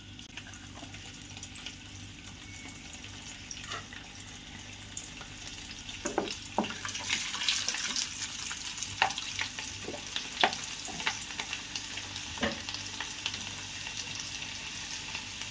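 Hot oil sizzling in an aluminium kadai with garlic cloves, asafoetida and turmeric frying in it. From about six seconds in a spatula stirs through the oil, and the sizzle gets brighter, with a handful of sharp scrapes and knocks against the pan.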